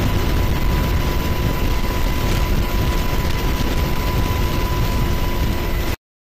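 Helicopter in flight heard from aboard: a steady heavy rumble with a thin steady whine over it, cutting off abruptly near the end.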